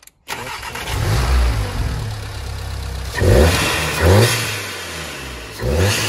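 Volkswagen Golf R Mk7's EA888 turbocharged four-cylinder, fitted with an open-cone RAMAIR induction kit, running and revved in three short throttle blips about three, four and nearly six seconds in. Each blip rises and falls in pitch with a rush of intake air.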